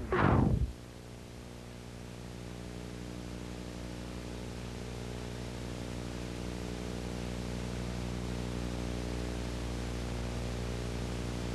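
Steady low hum with several fixed tones inside a car, slowly growing louder. Just before it, a sliding, wavering sweep of sound cuts off under a second in.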